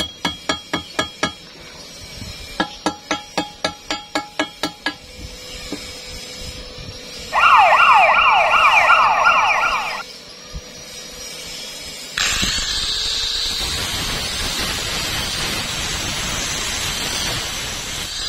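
Rapid runs of light hammer taps on steel, ringing, as slag is chipped off a weld; then a loud, rapidly warbling high tone for about three seconds. About twelve seconds in, an angle grinder with a thin disc spins up and runs steadily, cutting into the weld seam.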